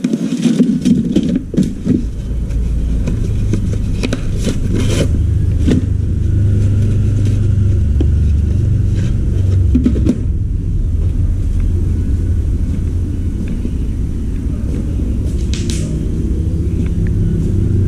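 A steady low rumble of a running motor or machinery. Over it come clicks and clatter of plastic parts and circuit boards being handled in a crate, busiest in the first few seconds, with a few more knocks later.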